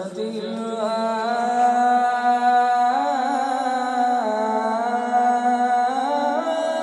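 A man's voice reciting the Quran in the melodic tajweed style, through a microphone. He draws out long held notes that step up and down with small ornamental turns.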